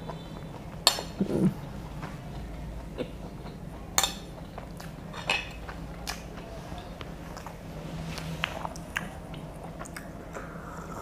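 A metal spoon clinking and scraping on a dinner plate during eating: several sharp clinks, the loudest about one second and four seconds in. There is a brief low hum of a voice just after the first clink.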